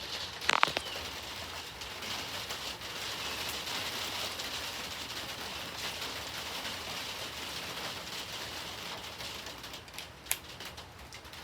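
Steady outdoor hiss with no clear thunder rumble, broken by a sharp click about half a second in and another near the end.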